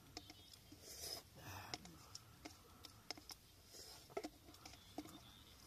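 Quiet eating from a small bowl: faint scattered clicks and a brief soft breathy sound about a second in.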